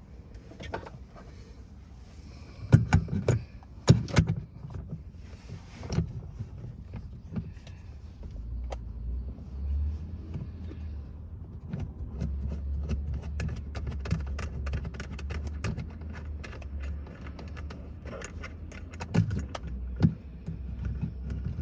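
Plastic clicks and knocks of a car phone and camera mount being handled and fitted, with a few louder knocks about three and four seconds in and again near the end.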